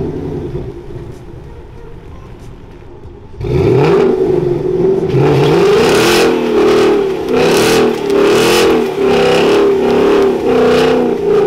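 Ford Mustang doing a burnout. The engine idles low for the first few seconds, then is revved hard about three and a half seconds in. It is held at high revs with the pitch wavering up and down while the rear tyres spin and smoke.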